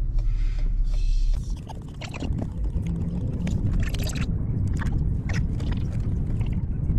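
Low rumble of a car driving, heard from inside the cabin, with scattered light clicks and rustles. About a second and a half in, the steady hum drops out abruptly and the rumble turns rougher.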